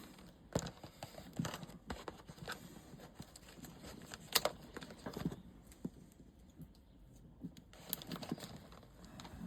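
Irregular light clicks and taps of a watch and its leather-and-rubber strap being handled while the strap's buckle and spring bar are fitted, with one sharper click about halfway through.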